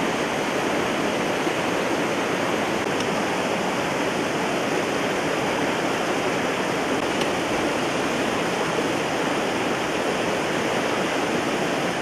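Spring water cascading over rocks in small falls and rapids: a steady, even rush of running water.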